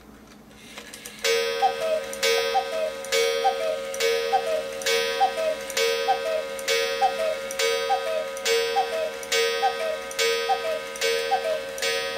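Mechanical cuckoo clock calling the hour: its freshly reinstalled bellows-and-pipe cuckoo sounds a falling two-note call about once a second, around a dozen times in a row, starting about a second in.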